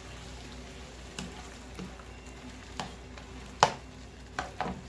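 Shrimp, zucchini and tomatoes being stirred with a spoon in a metal pot over a faint sizzle, the spoon knocking against the pot about six times, loudest a little past halfway.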